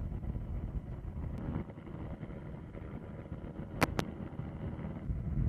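Low rumbling wind noise buffeting the microphone, with two sharp clicks in quick succession about four seconds in.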